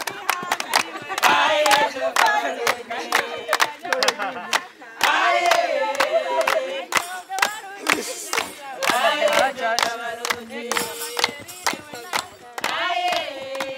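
A group of women singing a traditional Rwandan dance song with sharp, rhythmic hand clapping throughout, and loud shouts and cheers breaking in over the singing.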